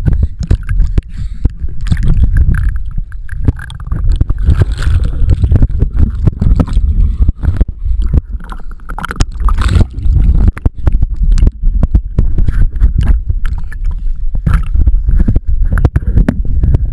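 Pool water splashing and sloshing against an action camera bobbing at the water's surface, heard as a loud low rumble broken by frequent, irregular sharp knocks.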